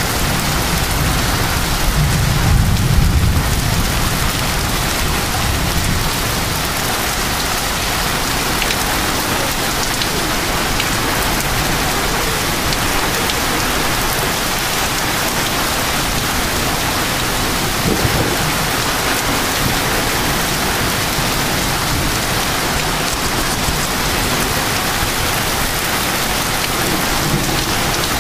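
Heavy thunderstorm rain and wind pouring down in a steady, dense hiss, with a low rumble about two seconds in.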